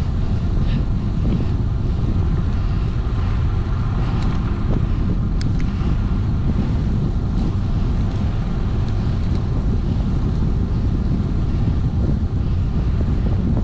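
Steady low rumble of wind buffeting the microphone, mixed with bicycle tyres rolling on an asphalt road.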